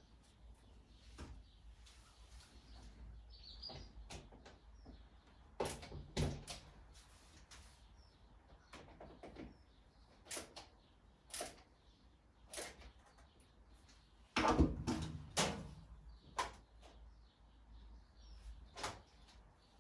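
Scattered knocks, bumps and clicks of a whiteboard being handled and hung on its wall fixings, with a louder cluster of knocks about fifteen seconds in.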